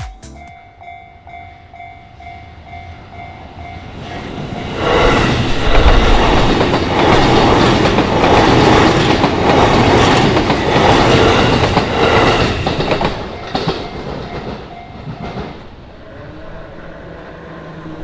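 Japanese level-crossing warning bell ringing. Then an electric commuter train passes over the crossing from about five seconds in, its wheels clattering over the rail joints. The train fades away after about thirteen seconds.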